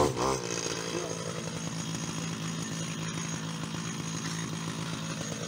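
Petrol brush cutter's small engine running steadily as it cuts through tall grass.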